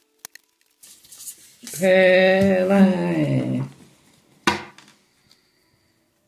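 Playing cards set down on a wooden tabletop with a few light clicks, a person's drawn-out voice in the middle, and a short sharp noise about four and a half seconds in.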